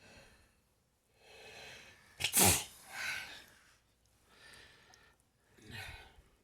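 A person sneezing once, loudly, about two seconds in, after a drawn-in breath, then breathing afterwards.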